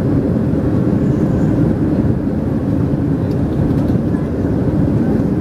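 Steady low drone inside the passenger cabin of a Boeing 737-300 climbing out after takeoff: its CFM56-3 turbofan engines and the rushing airflow, heard from a window seat over the wing.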